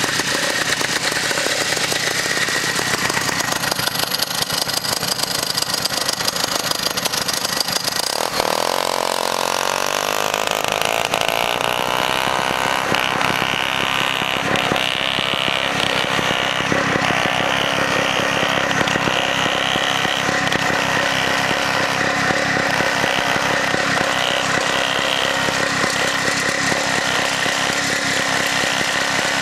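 A vintage snowmobile engine running continuously with a buzzy, chainsaw-like note. About eight seconds in its pitch falls, then it holds a steady run as the sled travels across the snow.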